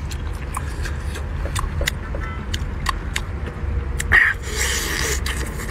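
Close-up wet eating sounds from biting and chewing a cooked octopus: many short sharp mouth clicks, and a louder wet bite about four seconds in, over a steady low rumble.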